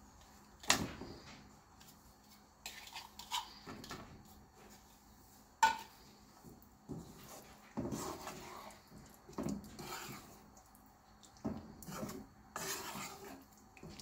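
Wooden spatula stirring paneer cubes into thick spinach gravy, knocking and scraping against the pan in irregular clatters. The sharpest knocks come about one second in and just before six seconds.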